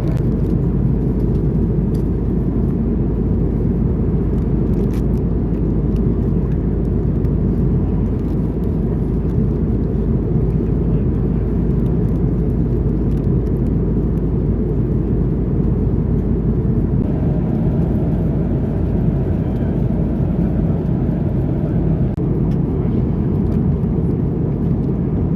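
Steady low rumble of a vehicle in motion, heard from inside it, with no breaks or distinct events.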